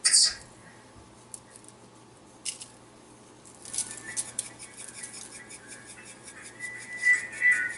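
Hand-held seasoning grinder being twisted: a couple of single clicks, then from about three and a half seconds in a run of rapid gritty ratcheting clicks with a faint squeak, loudest near the end. A brief sharp rattle right at the start.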